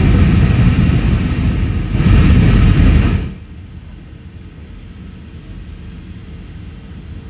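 Airliner cabin noise: a loud rushing noise for about the first three seconds cuts off suddenly, leaving a much quieter steady cabin hum.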